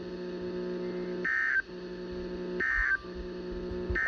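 Weather-radio receiver sounding three short, high, warbling data-tone bursts about a second and a third apart, the SAME end-of-message code that closes the special marine warning, over a steady electrical hum that drops out during each burst.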